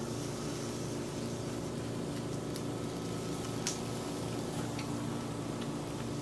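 Steady low hum with an even hiss, and a few faint light clicks.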